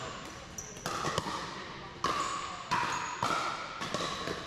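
Pickleball paddles striking a hard plastic pickleball: a string of sharp, hollow pops, five or six in all, spaced about half a second to a second apart. Each pop rings out in a large, echoing hall.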